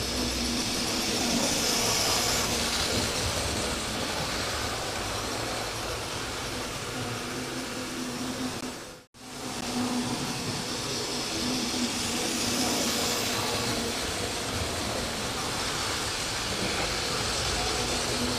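Analogue model trains running round the track: a steady mechanical running noise with a faint low hum, broken by a brief cut to silence about halfway through.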